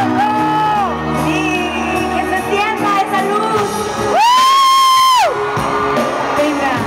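Live pop ballad heard from within the concert crowd: a woman singing over the band's backing, with the audience cheering. About four seconds in, a loud, high, held shriek lasting about a second rises over everything else.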